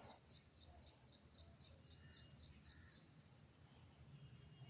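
Near silence with a faint bird chirping in the background: a quick high chirp repeated about three to four times a second, stopping about three seconds in.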